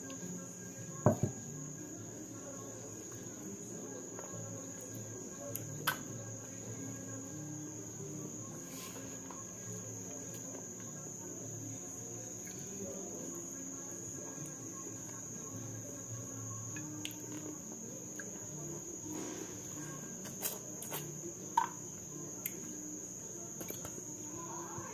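A steady high-pitched insect-like trill, of the kind a cricket makes, over a faint low background hum. A few sharp clicks or clinks break through, the loudest about a second in and several more near the end.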